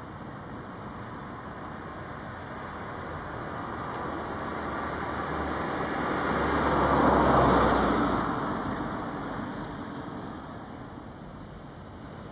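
A road vehicle driving past: its engine and tyre noise swells slowly, is loudest about seven seconds in with a low rumble, then fades away.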